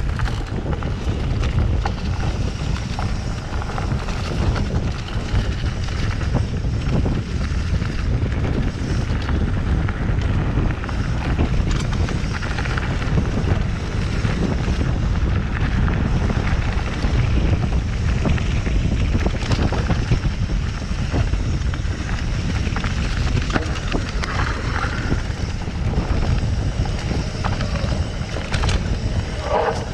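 Wind buffeting the microphone over the rumble of mountain bike tyres on a dirt forest trail during a fast descent, with scattered clicks and rattles from the bike over bumps.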